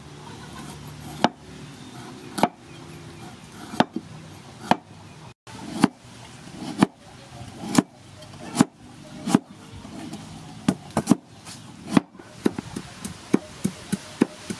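Cleaver and knife cutting firm green mango on a wooden chopping board: sharp chops about one a second, quickening to several a second near the end.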